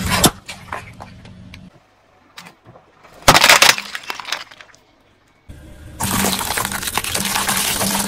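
Car tyre rolling over and crushing small brittle objects: a sharp crunch and crackle about three seconds in, then a longer stretch of crunching and crackling from about six seconds.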